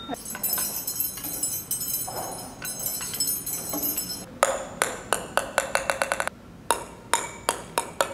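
Metal rods hanging from wooden clothes hangers chiming against each other as the hangers are handled, a cluster of high ringing tones. Then a ping-pong ball bouncing on a wooden table top, twice over: each run of bounces speeds up and dies away, every bounce a short pitched knock, the second run higher-pitched than the first.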